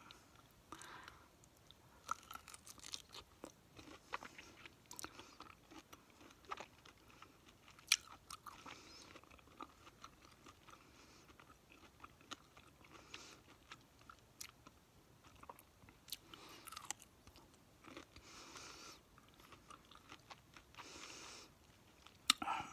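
Close-miked chewing and crunching of food: irregular crackles and clicks throughout, with one louder crunch about eight seconds in.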